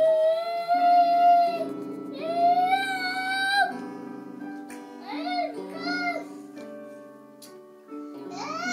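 A small child singing long, high held notes in three phrases, a lull, then starting again near the end, over steady electronic instrument notes that change in steps.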